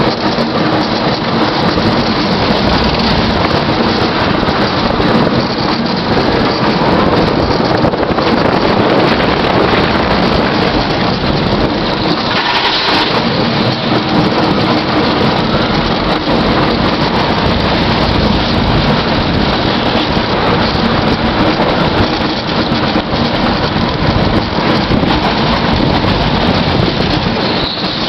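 AlpinaBahn roller coaster train running at speed on its steel track: a loud, steady rush of wind buffeting the microphone over the rumble of the wheels.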